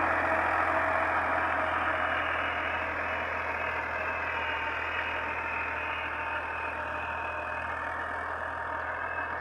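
Farm tractor's diesel engine running steadily as it pulls a tine cultivator through the field, growing a little fainter as it moves away.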